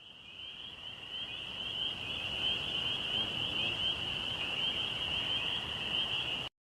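Insect chorus outdoors: a steady, shrill, rapidly pulsing buzz. It fades in over the first couple of seconds and cuts off suddenly near the end.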